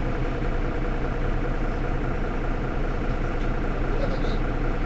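Mercedes-Benz Citaro city bus engine idling steadily while the bus stands at a stop.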